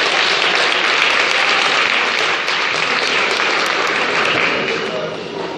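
Audience applauding, the clapping dying down near the end.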